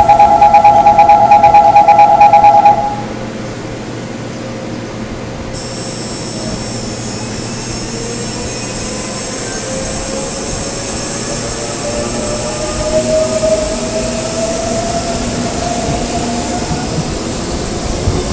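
Train door-closing warning chime beeping rapidly for about three seconds. After a pause, the Seoul Metro 4000-series train's Mitsubishi GTO inverter drive starts up: a high steady tone comes in, then a low whine rises slowly in pitch as the train starts moving and accelerates.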